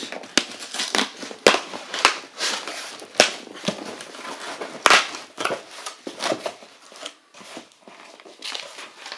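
Packing tape ripped off a cardboard shipping box and the box flaps torn open: a run of sharp rips and crackling cardboard, quieter near the end.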